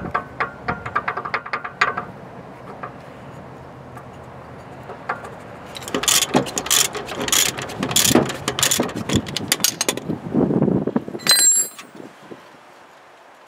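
Ratchet wrench clicking in quick runs as a nut on a suspension ball joint is turned, with metal tools knocking against each other. A short metallic clink rings out near the end.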